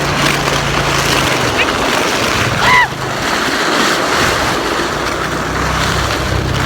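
Four-wheeler (ATV) engine running, dropping away for a few seconds in the middle and coming back, under a steady rush of wind noise. A brief high yelp about two-thirds of the way through the fade.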